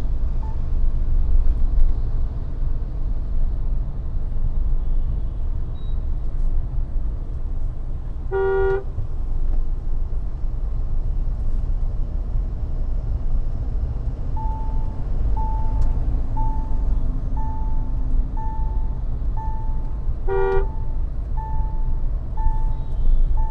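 Mahindra Thar driving in city traffic, with a steady low road and engine rumble. Two short horn honks come about 8 and 20 seconds in, and a steady beep starts repeating about once a second near the two-thirds mark.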